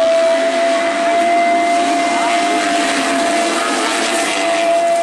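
A pack of 250cc motocross bikes at full throttle off the start, several engines revving hard together, with one high engine note held steady throughout.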